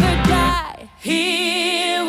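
Background pop song with a singing voice over a steady beat, pausing briefly about halfway through before the singing comes back in.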